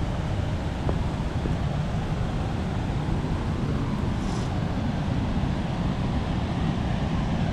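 Steady rushing of river water over rapids below a waterfall, an even roar with no breaks.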